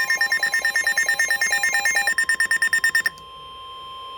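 Two electronic alert tones at once. A rapid pulsing multi-pitch alert tone stops abruptly about three seconds in. A steady single-pitch alarm tone, the weather radio's 1050 Hz warning alarm that comes before a National Weather Service warning is read, continues at a lower level after the pulsing stops.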